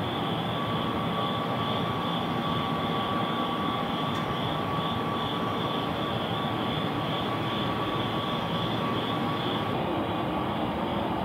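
Crickets chirping in an even pulsing rhythm, about three chirps a second, over a steady low rumble of distant city noise. A faint thin whine fades out near the end.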